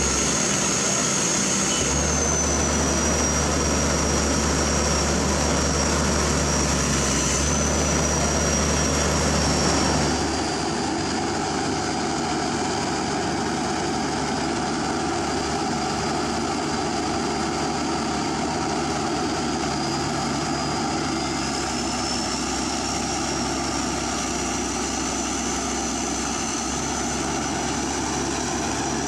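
Hydraulic excavator diesel engines running under working load, with a steady high whine that drifts slowly in pitch. The low engine note changes about ten seconds in.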